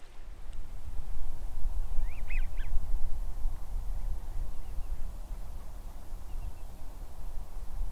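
A steady low rumble, with a short cluster of duck calls about two seconds in and a few faint calls near the end.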